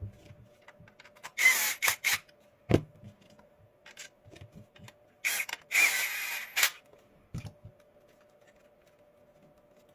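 Plastic housing parts of a portable tyre inflator being handled and fitted together: two rustling scrapes of about a second each, and a few sharp clicks and knocks.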